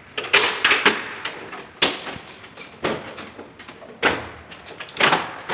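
Sharp clacks and knocks from the casing of a Carrier split-type air conditioner's wall-mounted indoor unit being handled and fitted: a quick cluster in the first second, then single knocks about once a second.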